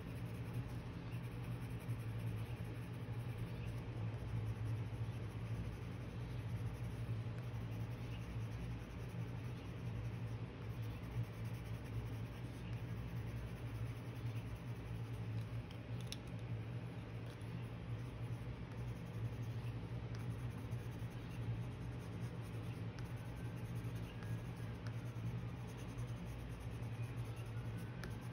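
Coloured pencil scratching across watercolour-painted paper in repeated shading strokes, over a steady low hum.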